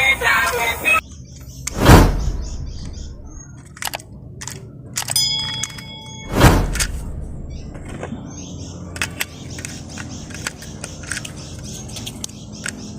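Intro music cuts off, then handling of plastic toy train pieces: two heavy thumps about four seconds apart, a brief high squeak in between, and scattered light clicks and taps.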